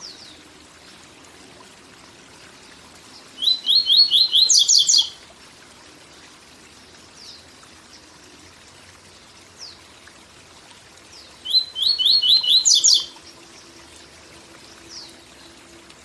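Papa-capim (yellow-bellied seedeater) singing its 'tui tui zel zel' song twice, each phrase a quick run of repeated notes ending in higher ones, with long pauses and a few faint single notes between. A steady waterfall hiss runs underneath.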